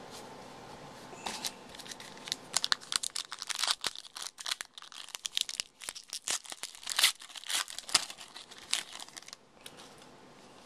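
Foil wrapper of a 2011 Panini Gridiron Gear football card pack being torn open and crinkled by hand: a run of sharp crackles from about two and a half seconds in until about nine seconds in.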